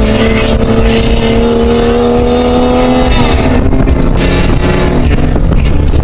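Toyota Camry Solara's engine pulling hard, heard from inside the cabin, its pitch climbing steadily, then falling away about three seconds in, over a constant rumble of road noise.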